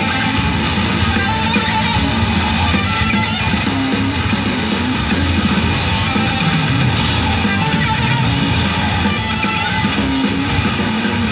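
Heavy metal band playing live through a festival PA, loud and continuous, led by electric guitars with a melodic guitar line over the rhythm.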